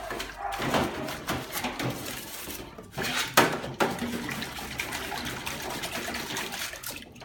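Dishes being washed by hand in a sink of water: water splashing and sloshing, with a few sharp clatters of dishes knocking together about three to four seconds in.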